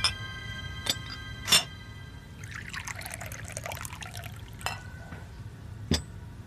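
Porcelain tea set clinking on a tray as it is set down, with a few sharp clinks, and tea pouring from a porcelain teapot into a cup for about two seconds near the middle.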